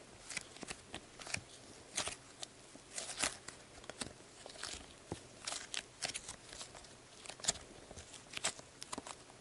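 Soft, clay-like slime (Sbabam Softy Melmito Slime) being kneaded and squeezed by hand, making faint, irregular sticky clicks and crackles.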